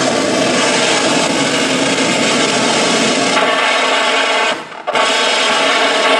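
Harsh noise from live tabletop electronics: a loud, dense, gritty wall of rasping noise that drops out for about half a second roughly two-thirds of the way through, then comes straight back.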